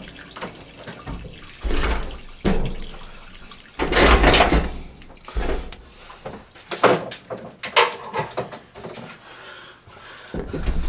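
Irregular handling noises: a series of knocks, clunks and rustles, the loudest about four seconds in.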